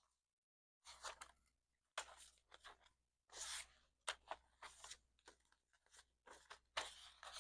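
Paper banknotes and cash envelopes rustling and crinkling as they are handled, in a dozen or so short, crisp bursts with brief pauses between.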